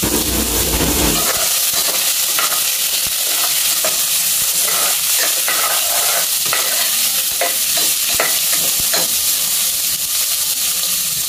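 Sliced onion and tomato frying in hot oil in a pan, with a steady sizzle. A spatula stirs them, scraping and tapping against the pan in short clicks.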